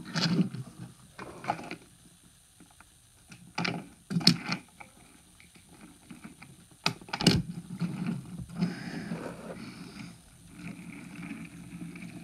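Plastic toy trains being handled: scattered knocks and clicks, then in the second half a steady rattling rumble of plastic toy wheels rolling over a wooden floor.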